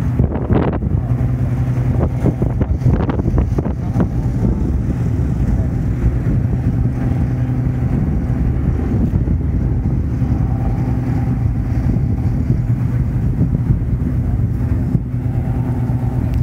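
The twin Allison V-1710 V12 engines of a Lockheed P-38 Lightning running steadily.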